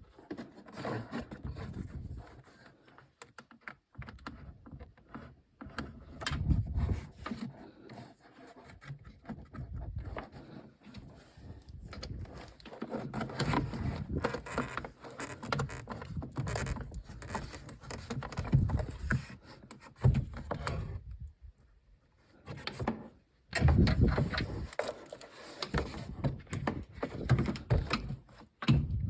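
Irregular clicks, knocks and scrapes of hands and tools working on a Volvo S60's door handle mechanism, with a brief quiet pause about three quarters of the way through.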